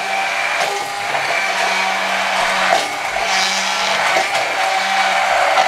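Hand blender running at medium speed, blending yogurt with coriander, mint and green chillies in a tall beaker: a steady motor whine over the churning of the mixture.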